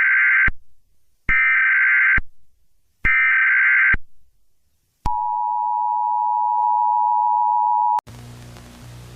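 Emergency Alert System header: three roughly one-second bursts of screeching SAME data tones, then about three seconds of the steady two-tone EAS attention signal, which cuts off abruptly into a low buzzing hum.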